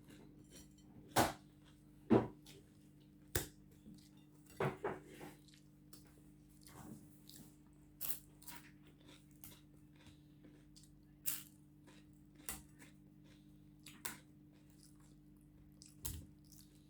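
A person chewing and crunching food close to the microphone, in irregular crisp bites that are loudest in the first few seconds and then come more sparsely. A faint steady hum runs underneath.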